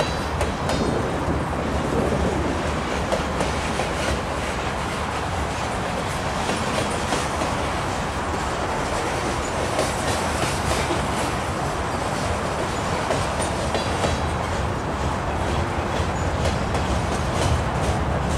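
CN freight train's cars rolling past: a steady rumble of steel wheels on rail with a stream of clicks as the wheels cross the rail joints.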